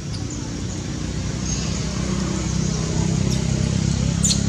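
Low, steady rumble of a motor vehicle's engine running nearby, growing slightly louder. A brief high-pitched squeak sounds near the end.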